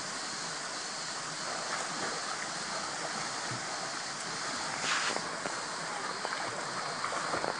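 Steady rush of a small waterfall pouring into a rock pool, with the splashing of a swimmer's strokes in the water, one louder splash about five seconds in.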